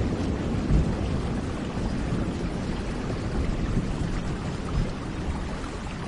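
Steady rain with a low rumble of thunder that slowly dies away.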